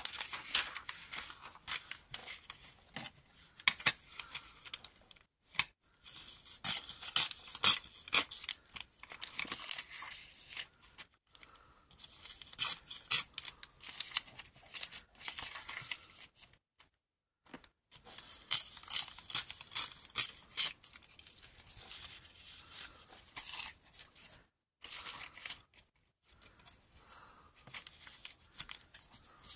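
Paper rustling and crinkling as old book pages and crumpled brown packing paper are folded and pressed by hand. It comes in irregular bursts with a few short pauses.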